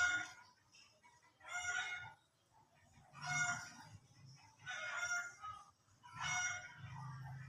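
Young yellow-vented bulbuls calling, short bursts repeated about every second and a half.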